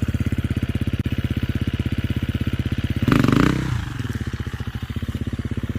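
FE350R dirt bike's single-cylinder four-stroke engine idling with an even low pulse. It gets one short blip of the throttle a little past halfway, then drops back to idle.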